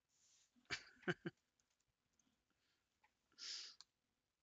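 Near silence with a few faint sounds from a person at the microphone: a brief throaty sound about a second in, then a short breath a little before the end.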